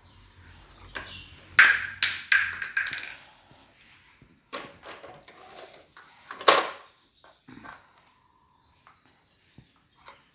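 Plastic toy truck knocked about and pushed across a tiled floor: irregular clatters and scrapes, the loudest a sharp clatter about six and a half seconds in.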